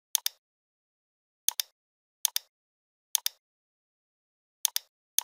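Computer mouse clicks, about five of them at uneven intervals. Each click is a quick pair of sharp ticks with silence in between.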